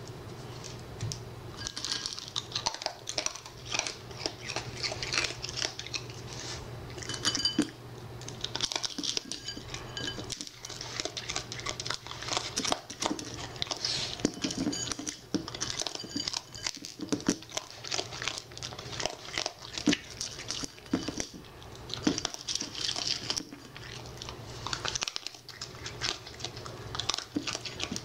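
A raccoon moving about a hard kitchen floor and handling food in a bowl: irregular small clicks, taps and rustles of its claws and paws on the floor and bowl, over a steady low hum.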